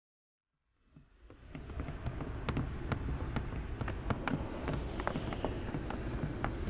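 Outdoor ambience fading in about a second in: a steady low rumble with irregular footsteps and light knocks, as people walk down the airstair and across the apron.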